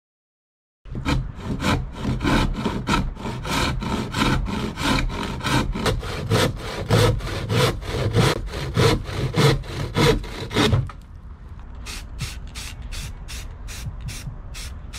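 Sandpaper rubbed by hand along a wooden 2x6 board in quick back-and-forth strokes, about three a second, starting about a second in. Near the end the strokes give way to a run of short, quieter hisses from a spray-paint can.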